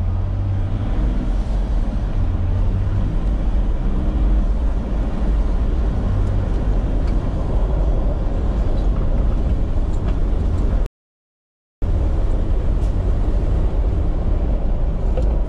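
INEOS Grenadier 4x4 driving along a dirt track: a steady low rumble of the running vehicle and its tyres on the dirt, with a few faint clicks. The sound drops out completely for about a second, about eleven seconds in.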